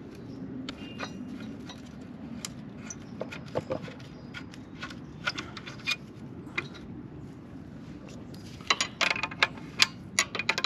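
Combination wrench clinking and clicking on the bolts of a motorcycle's exhaust pipe support bracket as they are undone: scattered light metallic ticks, with a quick run of them about nine seconds in.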